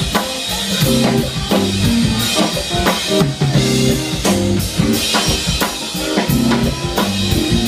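Live band playing, a Mapex drum kit's snare and bass drum keeping a steady beat under sustained low instrument notes.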